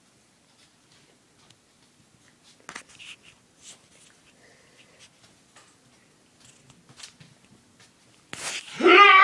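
A few faint, short hiccups a second or more apart, then loud laughter breaking out near the end.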